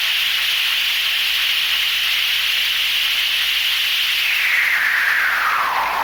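Synthesized noise through a resonant filter: a bright, steady hiss that, about four seconds in, sweeps smoothly downward in pitch as the filter closes, a noise sweep with no beat under it.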